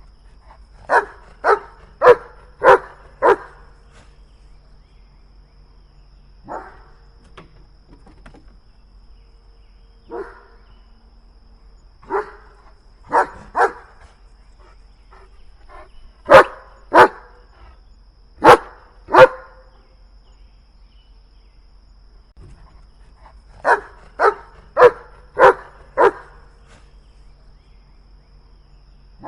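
German Shepherd barking in bouts: a quick run of five barks near the start, then scattered single and paired barks, and another run of five near the end, with pauses of a few seconds between bouts.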